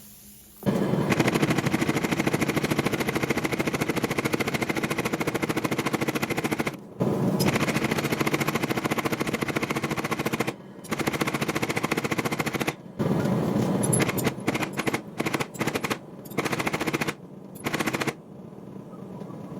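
Power hammer beating out a hot steel bar in rapid machine-like blows. The blows come in long runs of several seconds with brief pauses, then in short stop-start bursts, and stop shortly before the end.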